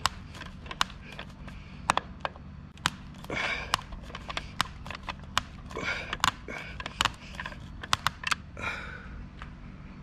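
Hand screwdriver tightening a mounting screw through a garage-door keypad into the siding: irregular clicks and short scrapes as the tip turns in the screw head, over a steady low hum.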